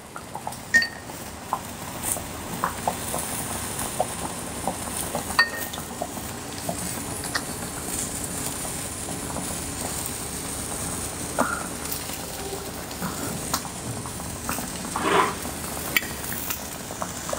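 Beef slices sizzling steadily on a round tabletop grill pan, with light clicks and taps of plates and herbs being handled and a brief louder rustle near the end.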